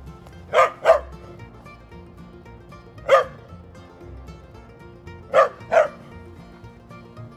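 A dog barking five times: a quick pair, a single bark about halfway through, then another quick pair near the end, over quiet background music.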